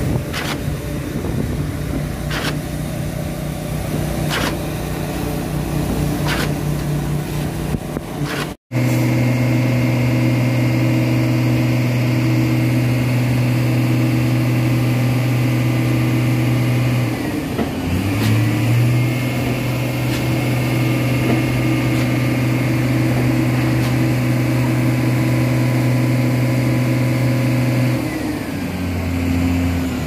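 Concrete pump truck and concrete mixer running while pumping concrete, with their diesel engines holding a steady drone. In the first part, a sharp knock comes about every two seconds as the pump strokes. Later the engine hum runs steadily, dipping and shifting in pitch twice.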